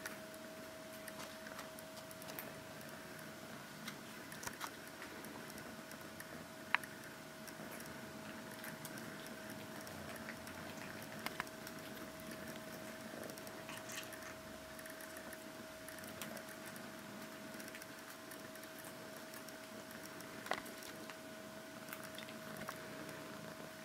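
Quiet room tone with a steady hum and scattered faint clicks and taps, the sharpest a little under 7 seconds in and around 20 seconds.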